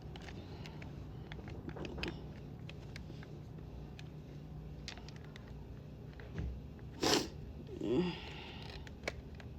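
Faint scattered clicks and taps of the blow dryer's plastic housing and small parts being handled and worked with a screwdriver. Near the end there is a sharp breath and then a short grunt.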